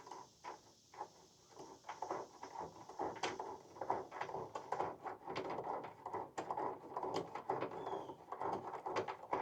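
A caster wheel being turned by hand to screw it into the base of a metal tool cart: irregular small metallic clicks, rattles and scraping.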